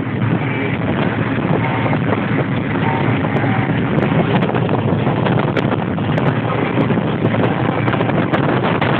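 Freightliner Columbia semi truck cruising on the highway, heard from inside the cab: a steady, loud mix of diesel engine and road noise.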